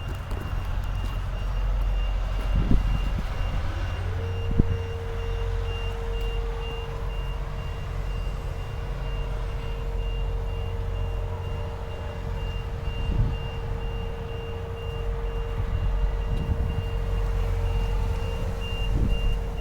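A vehicle's reversing alarm beeping steadily over a low engine rumble. A steady hum glides up and settles about four seconds in, and there are two short knocks in the first five seconds.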